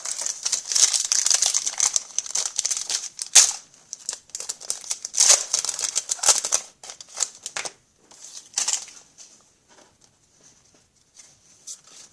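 A hockey card pack's wrapper being torn open and crinkled by hand, in long crackly stretches, then shorter rustles near the end.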